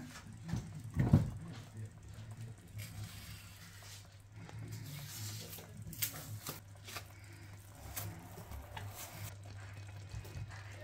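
Ripe plantain being cut with a knife and the pieces dropped into a pot of water: soft plops, knocks and clicks, the loudest a low thump about a second in, over a steady low hum. Plantain skin is being peeled off near the end.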